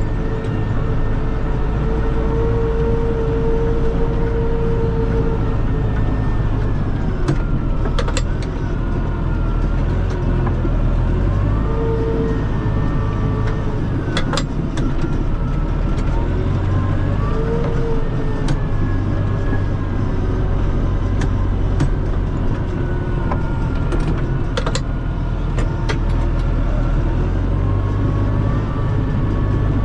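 Massey Ferguson 5445 tractor's 4.4-litre Perkins common-rail diesel running steadily, with a whine that rises and falls in pitch and a few sharp clicks.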